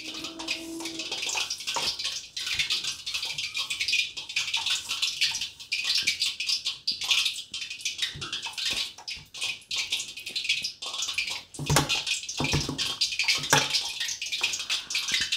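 Hands squishing and kneading wet gram-flour dough in a stainless steel bowl: a continuous wet, crackly squelching. A few fuller thumps come about three-quarters of the way through as the dough is pressed and turned.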